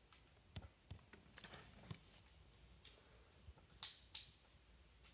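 Faint, scattered clicks and taps of plastic Lego pieces being handled, the sharpest click nearly four seconds in.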